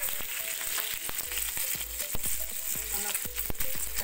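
Peeled hard-boiled eggs frying in hot refined oil in a pan: a steady sizzle with frequent spattering pops.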